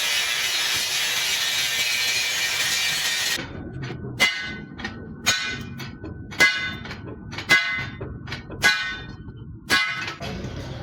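A steady harsh rushing noise for about three and a half seconds, then a hammer striking a steel truck leaf spring six times, about once a second, each blow ringing on briefly.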